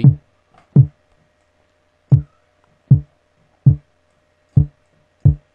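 Synthesized kick drum from a soft synth: a detuned sawtooth through a low-pass filter whose cutoff is swept down by a short envelope, struck seven times at uneven spacing. Each hit is short and drops in pitch into a low thump, while its cutoff and decay are being nudged up between hits.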